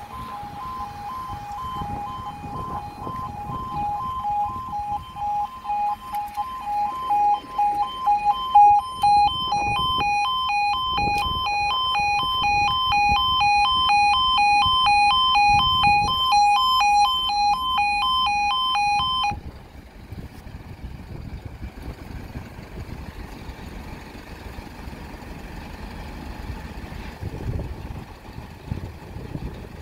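Level crossing audible warning alarm: a loud, pulsing two-tone alarm that sounds while the barriers lower for an approaching train. Higher-pitched pulsing tones join it about nine seconds in. Both cut off suddenly about two-thirds of the way through, leaving quieter outdoor background noise.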